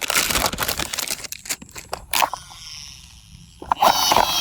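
Toy packaging being unwrapped: dense crinkling and tearing for about two seconds, then quieter handling. Near the end a louder sound with a steady pitch starts.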